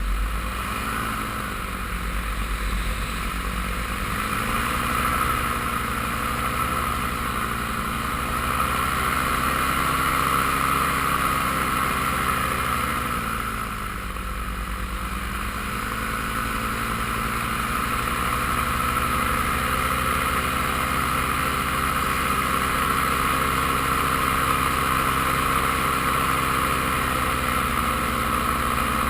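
Paramotor engine and propeller running steadily in flight. The engine note dips briefly about halfway through, then rises back to a steady pitch.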